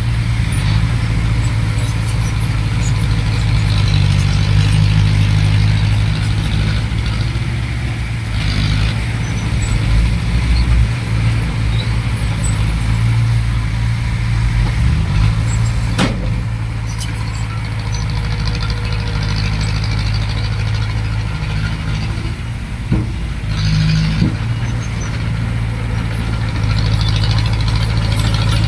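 Heavy diesel engines running steadily at a soil-loading site, with a single sharp knock about halfway through.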